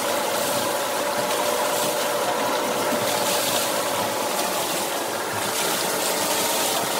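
Homemade water wheel running: water from a feed pipe rushing steadily onto the wheel while its belt-and-chain-driven generator turns.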